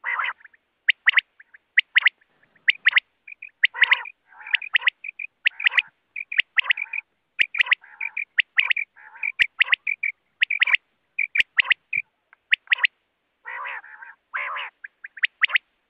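Common quail calling without a break: quick runs of short, sharp, high notes, often two or three in a row, mixed with rougher, rasping lower calls.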